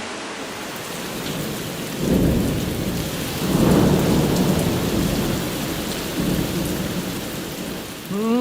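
Heavy rain falling in a steady hiss, with thunder rumbling in three rolls that swell and fade over several seconds.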